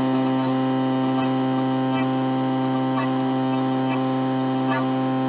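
Small electric motor rig running with a steady electrical hum made of several even tones, and a few faint ticks.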